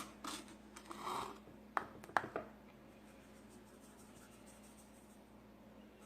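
A few light clicks and knocks with brief soft rustles of a measuring cup and brine container being handled while sugar is added, all in the first two and a half seconds; the rest is near silence.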